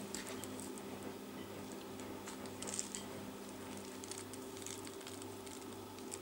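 Faint gritty rustling and crackling of loose, damp vermiculite granules shifting under fingers as rooted cuttings are pulled out of it, over a steady low hum.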